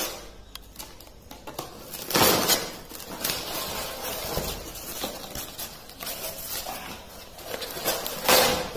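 A blade cutting the packing tape on polystyrene foam blocks, and the foam scraping and rubbing as the blocks are worked apart. It sounds scratchy and crackling, loudest about two seconds in and again near the end.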